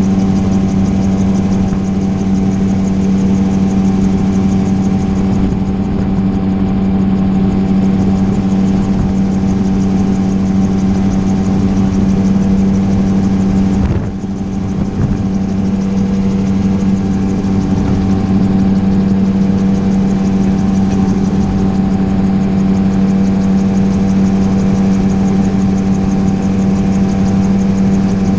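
Gyroplane engine and propeller running steadily in flight, a loud constant drone with rushing air noise. The sound drops briefly about halfway through, then comes back to the same steady note.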